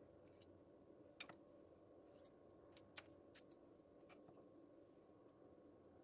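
Near silence: a faint steady room hum with a few soft, short clicks and taps of a metal spoon and fingers putting apple-walnut filling onto cookie dough on a parchment-lined baking tray.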